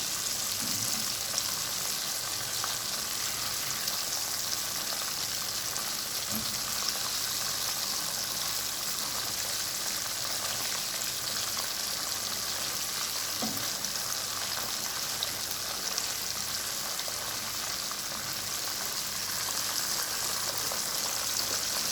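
Coated chicken pieces deep-frying in hot oil, a steady sizzle, with a few soft knocks along the way.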